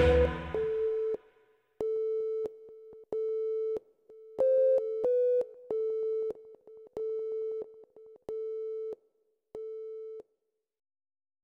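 Closing electronic music gives way to a telephone-style beeping tone, pulsing about once every 1.3 seconds, each beep about half a second long, with two higher-pitched beeps near the middle; the beeps stop about ten seconds in.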